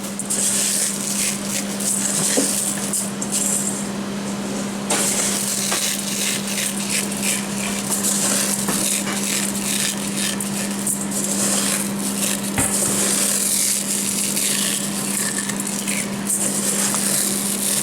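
Food sizzling in a frying pan on the stove, with many short clicks and scrapes of a utensil against the pan, over a steady low hum.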